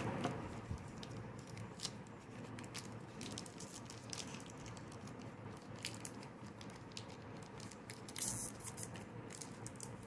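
Cadbury Perk's plastic chocolate-bar wrapper being handled and torn open by hand: scattered crinkles and crackles, with a louder burst of crackling about eight seconds in.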